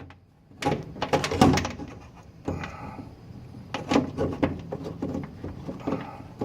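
Clicks and knocks of a van's side-door latch assembly being handled and fitted back into the door after a cable repair, in a quick irregular run of sharp taps.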